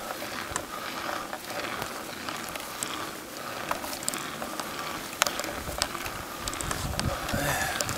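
Bicycle being pedalled slowly uphill: scattered light clicks and rattles from the drivetrain and frame over a steady rustle, with a low rumble building near the end.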